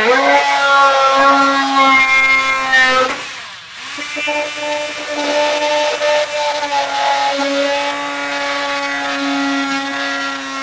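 Corded RIDGID oscillating multi-tool cutting a half-lap notch into a wooden board: a steady, high-pitched motor hum with a short break about three seconds in, after which it runs again. The blade is not fresh after a full day's use.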